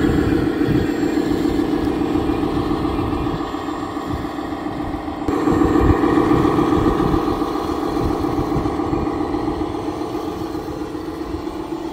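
Simulated diesel engine sound from the onboard sound module of a scale RC Volvo articulated dump truck, running steadily. It jumps louder about five seconds in, then eases off slightly.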